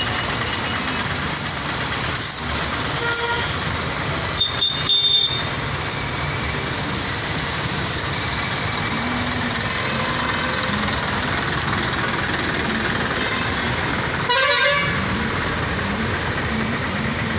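Busy street traffic with a steady hum of engines and road noise. Vehicle horns honk a few short toots about four and a half seconds in, and again in one short blast about ten seconds later.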